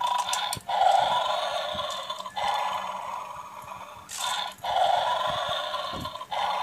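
Battery-powered toy bulldog from a bone-snatching 'beware of the dog' game playing its electronic dog sound effect through a small speaker, a noisy sound in stretches of about a second and a half with short breaks between them.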